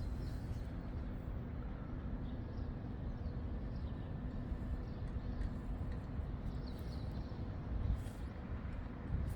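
Outdoor city background: a steady low rumble of distant traffic, with a few faint bird chirps over it.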